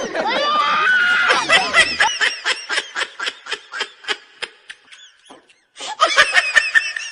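Laughter: a run of quick, rhythmic 'ha-ha' pulses, about four or five a second, that trails off, a short pause, then another burst of laughter near the end.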